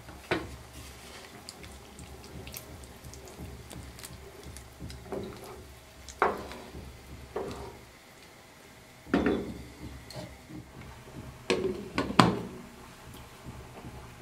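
A spoon stirring soup in a pot, with sharp clinks and knocks against the pot every second or two, the loudest near the end as the glass lid is set on, over a low steady hum.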